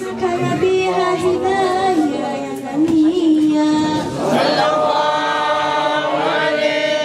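Voices chanting a devotional mawlid hymn in praise of the Prophet, in long held notes, gliding up to a higher sustained note about four seconds in.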